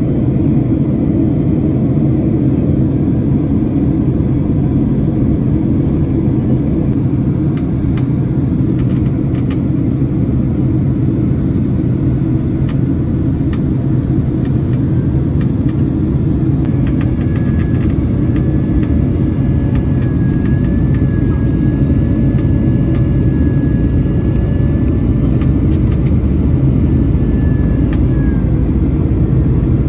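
Steady engine and airflow roar inside the economy cabin of a Boeing 767-300ER airliner. A faint, slightly wavering whine joins a little past halfway and fades out near the end.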